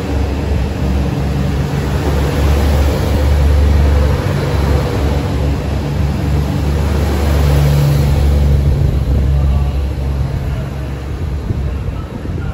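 JR Central HC85 hybrid diesel multiple unit pulling out and passing close by. Its diesel generator engines make a steady low drone, with a mechanical rumble over it, which fades near the end as the last car goes by.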